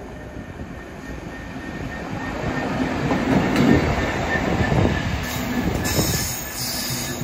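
Freightliner Class 66 diesel-electric locomotive, with its two-stroke V12 engine, passing through the station. The engine and wheel noise grow louder as it approaches and are loudest about four seconds in. A thin high squeal from the wheels rides over the rumble.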